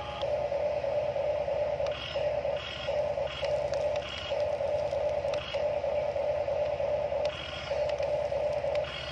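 Electric motors and gearboxes of a Huina radio-controlled toy excavator whining steadily as the arm and bucket move, with several short breaks and clicks as the controls change direction.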